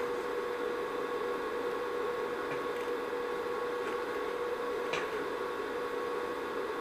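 Electric welder humming steadily with a faint hiss, and a few short sharp crackles in the middle as brief welds are laid on a cracked motorcycle frame tube, a little at a time to keep the frame from warping.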